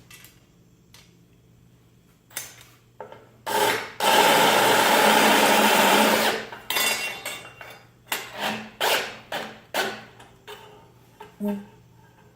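Power drill running steadily for about two seconds, driving a screw or bit into the mount, followed by a series of short bursts and knocks as it is pulsed and handled.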